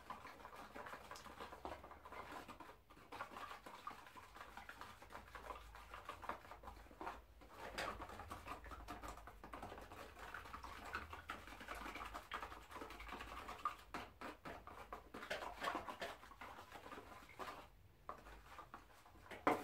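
Wooden stick stirring linseed oil and ground charcoal pigment in a metal tray: faint, irregular scraping and scratching against the tray.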